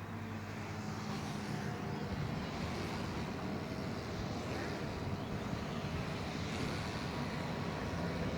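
Steady mechanical drone with a rumbling noise and a few faint steady tones, growing slightly louder.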